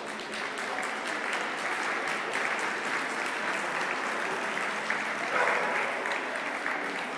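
Audience applauding, a dense spread of hand claps that swells briefly about five seconds in.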